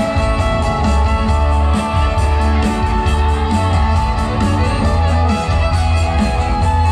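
Live rock band playing, guitar to the fore over a strong, steady bass line.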